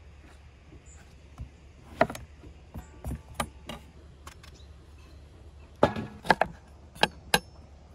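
Kitchen knife cutting the stem ends off eggplants and knocking down onto a wooden cutting board: about seven sharp chops at uneven intervals, most of them bunched near the end.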